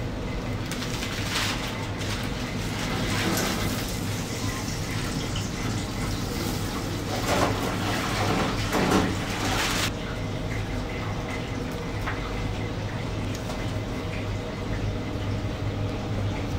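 Restaurant kitchen background: a steady mechanical hum under a rushing hiss that cuts off suddenly about ten seconds in.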